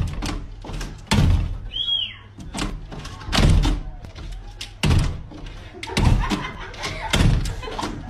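A sliding glass door being slid and banged against its frame again and again while a dog paws at the glass, with a thud about every second. A short high squeal about two seconds in.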